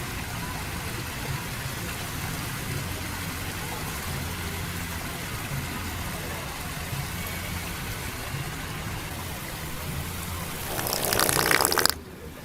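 Steady low hum with a light hiss. Near the end comes a loud, crackly, spluttering burst about a second long that cuts off abruptly: the wet-fart noise of a Sharter squeeze toy.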